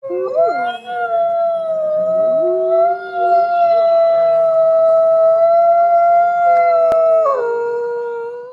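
Wolves howling in chorus: one long howl held steady for several seconds that drops in pitch near the end, with other howls gliding up and down beneath it. It cuts off suddenly.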